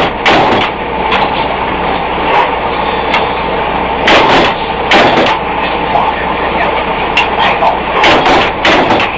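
Loud, steady machinery noise from an induction heating and forging setup, with a low hum underneath and several sharp knocks at irregular moments.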